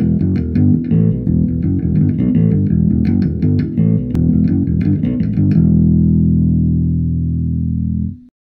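Channel intro music: a quick run of plucked notes over a heavy bass line, ending on a long held chord that cuts off suddenly near the end.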